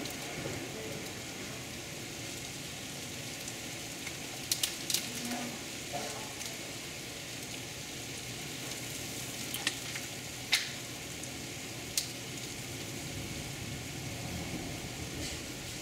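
Heavy rain hissing steadily, heard from indoors through a window, with a few sharp ticks about four and a half, ten and a half and twelve seconds in.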